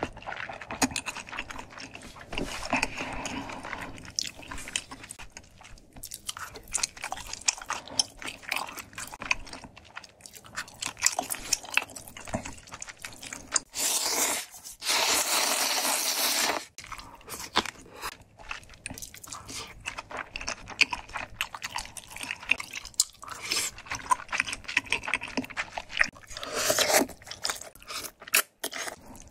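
Close-miked eating of ramyeon with rice cakes and dumplings: many short chewing and biting clicks, and a long, loud noodle slurp lasting about two and a half seconds around the middle.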